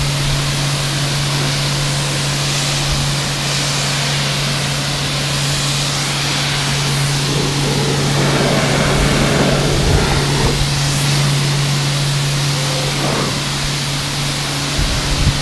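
Kärcher K4 pressure washer running with a PA snow foam lance spraying foam onto a car: a steady hum under a continuous hiss of spray, a little louder around eight to eleven seconds in.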